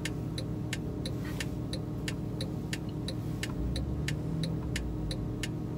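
A Porsche 911 (997) flat-six engine idling with a steady low hum, while a turn-signal indicator ticks regularly about three to four times a second.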